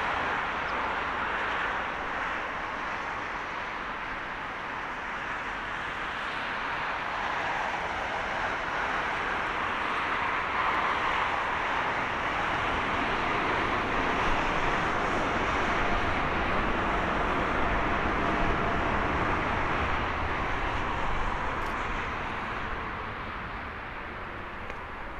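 Jet engine noise from a Boeing 787-9 rolling out on the runway after touchdown, a steady broad rush that swells about halfway through and fades near the end as the airliner slows.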